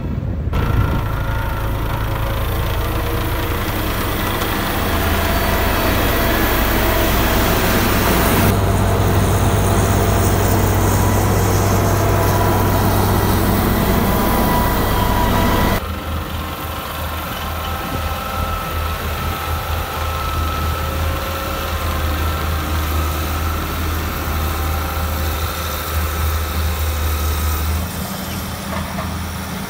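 Diesel engine of a Shantui SR22MP single-drum road roller running steadily with a low hum. The sound shifts abruptly about eight seconds in and again about sixteen seconds in.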